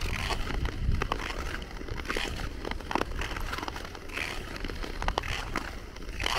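Nordic touring skate blades scraping and gliding over natural lake ice, a hissing scrape at each stride every second or two. Sharp clicks and a low rumble run underneath.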